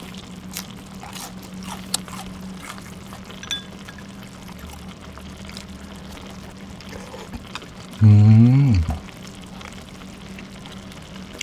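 Close-miked eating sounds: chopsticks clicking, and chewing and slurping of noodles and stew broth, over a low steady hum. About eight seconds in there is one short, loud 'mmm' hum of enjoyment that rises and falls in pitch.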